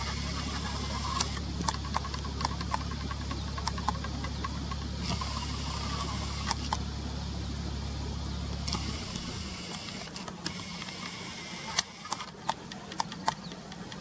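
A steady low engine-like hum that stops about nine seconds in, with scattered sharp clicks and faint short high notes over a background hiss.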